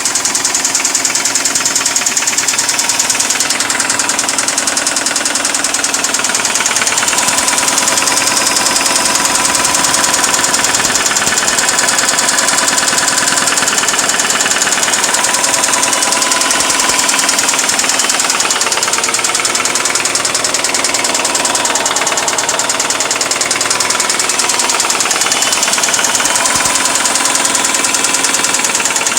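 Subaru EJ20 flat-four engine idling with a loud, rapid, regular tapping knock, which the owner traces to the right-side cylinder head and suspects is rod knock or a valve problem.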